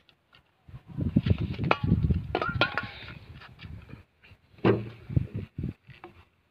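A flat metal tool scraping and knocking against a heat-softened PVC pipe as it is pried inward to free it from its glued fitting. There is a quick run of knocks and scrapes in the first half, and another sharp knock about three-quarters of the way through.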